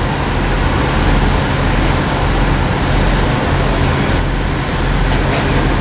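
Diesel multiple-unit railcar engines running steadily, giving a low, even drone with a thin, steady high whine above it.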